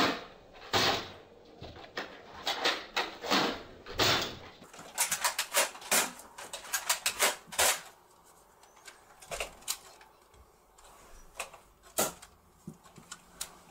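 Nerf foam-dart blaster being worked and fired over and over: sharp plastic clacks and knocks, coming thick and fast through the first half and more sparsely after about eight seconds.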